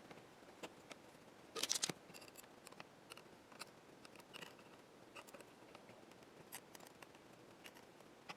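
Faint small clicks and ticks of hand work on a small plastic and film assembly, with a quick cluster of sharper clicks a little under two seconds in.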